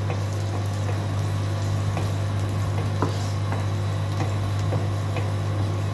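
Sliced onions sizzling as they fry in oil in a karahi, stirred with a wooden spatula that taps and scrapes against the pan now and then. A steady low hum runs underneath.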